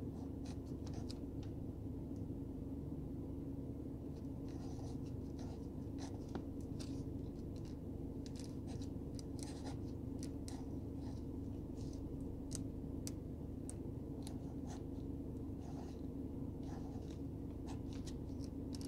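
Ballpoint pen writing numbers on notebook paper: short, scratchy strokes in irregular runs. A steady low hum sits underneath.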